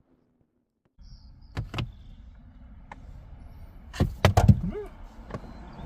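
A few sharp clicks and knocks, then a louder cluster of knocks about four seconds in followed by a short squeak, over a low steady rumble: parts and tools being handled in a car's interior.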